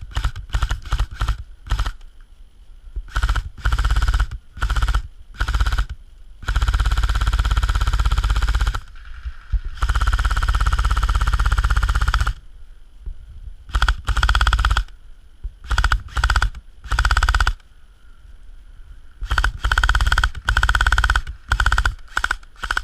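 Airsoft electric rifle firing on full auto: short bursts, then two long strings of about two seconds each near the middle, the gearbox cycling rapidly with a mechanical whine under the shots.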